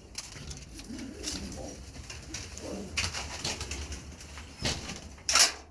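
Domestic pigeons cooing in a loft, with a few short noises of movement and a brief, louder one near the end.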